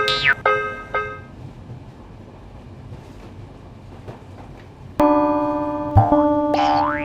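Cartoon-style electronic keyboard music: short pitched notes with a sliding pitch that fade out about a second in, a quiet stretch, then a loud sustained keyboard chord that starts suddenly about five seconds in, with a rising boing-like slide near the end.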